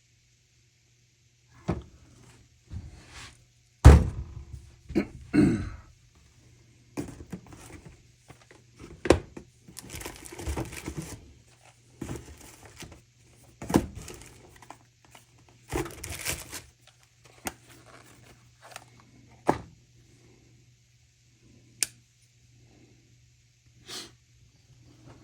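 Irregular knocks and clicks of vintage folding knives being handled, picked up and set down, with a heavy thunk about four seconds in that is the loudest.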